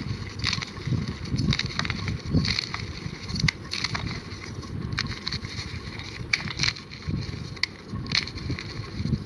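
Gym chalk being crushed and crumbled: a dense, uneven run of dry crunches and crackles over soft low thuds.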